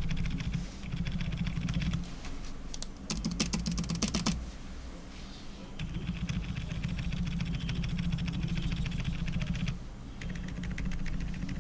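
Fast, continuous typing on a QK75 custom mechanical keyboard with lubed Outemu Peach silent linear switches and PBT keycaps. A brief run of sharper, louder key strikes comes about three seconds in.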